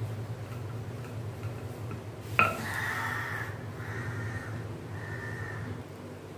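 A sharp knock about two seconds in, then three drawn-out calls, each under a second long, over a low steady hum.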